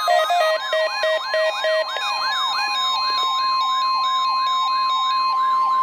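NOAA Weather Radio 1050 Hz warning alarm tone, a steady high tone that comes in about half a second in, with a whooping siren sweep rising and falling about four times a second over it: a weather radio receiver sounding its alert. A quick run of electronic beeping notes fades out in the first two seconds.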